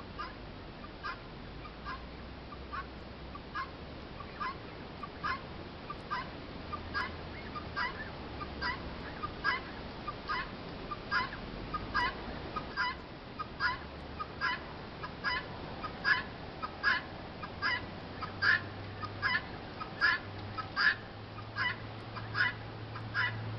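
A short, high call repeated evenly a little more than once a second, growing louder over time.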